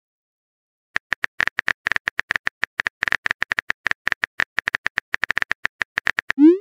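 A rapid, uneven run of short, clicky blips, all at the same high pitch, starting about a second in and going on for about five seconds, like a text-typing sound effect in an animation. It ends in a quick upward-gliding tone.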